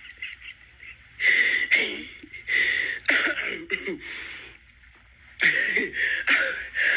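A person's voice, loud and harsh, in two stretches: one starting about a second in and another a little past five seconds, with a quiet gap between. The words cannot be made out.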